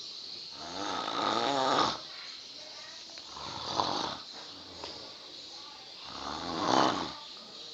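A sleeping person snoring: three long snores a couple of seconds apart, the first and last the loudest.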